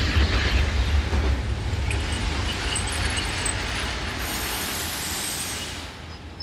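Electric commuter train rolling past a platform: a low wheel-and-motor rumble that slowly fades, with a brief high hiss about four seconds in.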